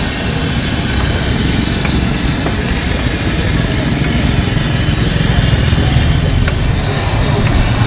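Motorcycle engines of passing street traffic running, the rumble growing louder toward the end, over a steady hiss from battered fritters frying in a wok of hot oil.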